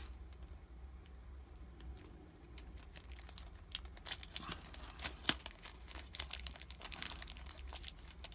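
Small clear plastic bag crinkling and crackling as fingers handle it. The crackles come in a quick, uneven run from about two and a half seconds in.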